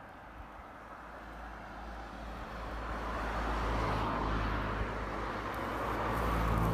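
Vehicle engine and road noise, a steady rumble with a hum, growing louder over the first three seconds and then holding.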